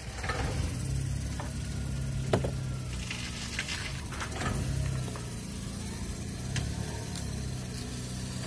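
A steady low hum in the background, with a sharp tap and some light scraping as a wooden stick dabs grey epoxy putty out of a small cup and onto the car mirror's base.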